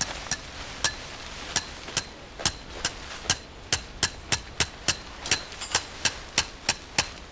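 A quick series of sharp clicks or light knocks, about three a second and coming a little faster towards the end, over a steady rustle while nylon tent fabric is handled and spread out.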